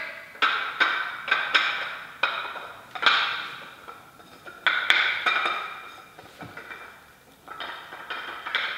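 A series of about a dozen sharp knocks at an irregular pace, each ringing briefly before fading.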